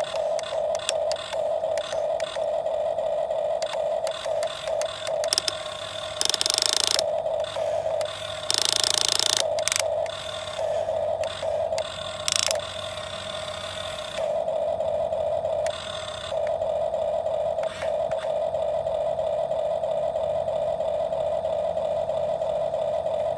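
Radio-controlled excavator's small electric motors whining in short stop-start runs as it moves. There are two louder rasping stretches, about six and nine seconds in, then a longer steady run near the end.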